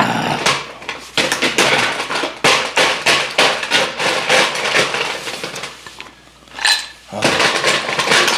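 Rapid knocking and clinking of ice in a stainless steel ice bucket as it is stirred with a wooden stick, pausing briefly about six seconds in and then starting again.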